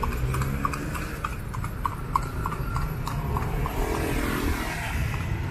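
A horse's hooves clip-clopping on a paved road at a steady walk, about three to four hoof strikes a second, growing fainter after about three and a half seconds, over a low background rumble.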